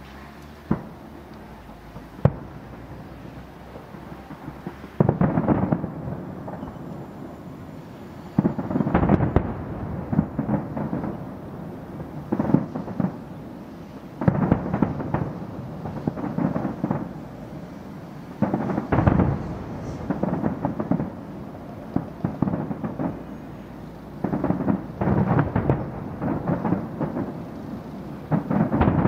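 Fireworks display going off: two single sharp bangs in the first few seconds, then, from about five seconds in, repeated salvos of shells bursting in quick crackling clusters with short lulls between.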